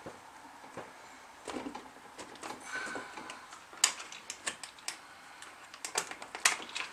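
Scattered small clicks and clacks of hard plastic and metal as a boat motor's clamp bracket is fitted onto an inflatable raft's motor mount and its clamp screws are turned, with the sharpest click about four seconds in and two more near the end.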